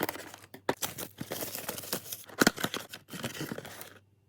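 Trading card box packaging being torn open and crinkled by hand: a run of crackling and tearing with sharp snaps, stopping shortly before the end.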